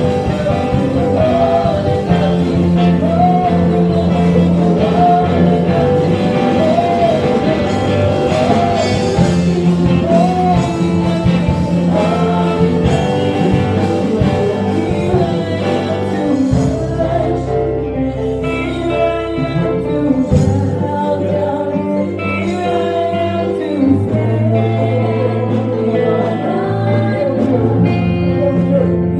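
Live gospel worship song: a small group of singers on microphones, amplified through the PA, over keyboard and electric guitar with a steady bass line.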